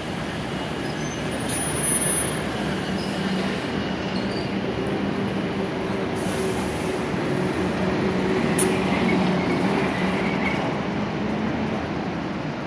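Busy street traffic with London double-decker buses: a steady low diesel engine hum, with a brief high squeal about a second and a half in.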